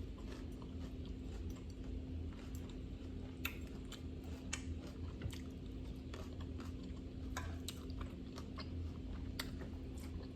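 A person chewing and eating grilled salmon salad close to the microphone, with scattered wet mouth clicks and smacks. A faint steady hum runs underneath.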